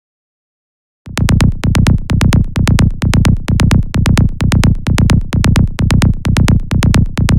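Electronic bass loop: a deep synth bass pulsing about twice a second under rapid drum-machine clicks, starting suddenly about a second in after silence.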